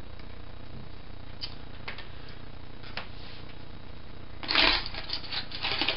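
A few light clicks of small plastic and metal parts being handled, then two louder bursts of clattering and rustling, about four and a half seconds in and again near the end.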